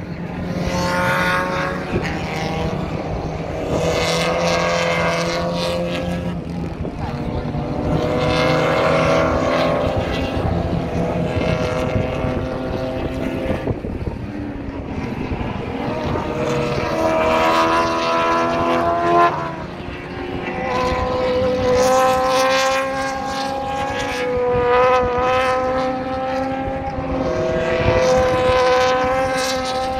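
A string of race cars passing at speed on a circuit, one engine note after another swelling and fading as each goes by. Near the end a Mazda Miata race car passes.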